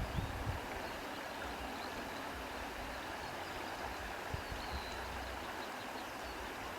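Wind blowing through grass: a steady rustling hiss, with a few low gusts buffeting the microphone in the first half second.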